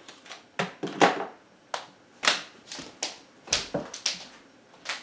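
A run of sharp, irregular taps and knocks close to the microphone, about ten over five seconds, the loudest about a second in.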